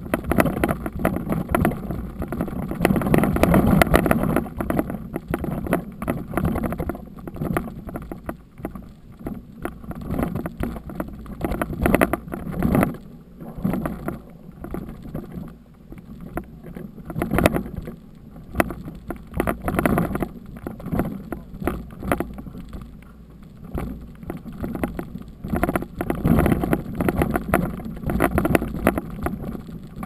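Mountain bike riding down a rocky dirt trail: knobby tyre crunching over gravel and stones with constant rattling and knocks from the bike and its mounted camera, and wind buffeting the microphone. The noise swells and eases several times as the ground gets rougher and smoother.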